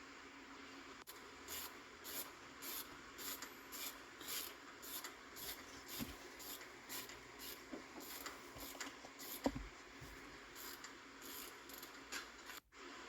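Hand ratchet being worked back and forth to run in the wheel bearing's mounting bolts, each stroke a short clicking rattle, about two a second, with one louder knock about three-quarters of the way through.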